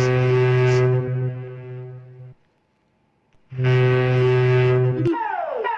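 Emergency alert warning tone: two long, loud, buzzy horn-like blasts of about two seconds each, separated by a short silence, then near the end a switch to quickly repeating falling sweeps like a siren.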